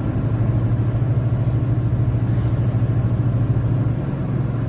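Steady low hum of a four-wheel-drive vehicle's engine and road noise, heard from inside the cab while driving.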